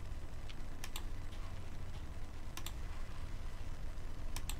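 Computer mouse double-clicks: three quick pairs of sharp clicks about two seconds apart, with a few fainter single clicks, over a steady low hum.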